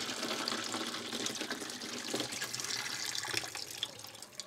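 Cooking water poured from a stainless steel saucepan into a stainless steel sink, splashing steadily and tapering off near the end, as boiled salt fish is drained.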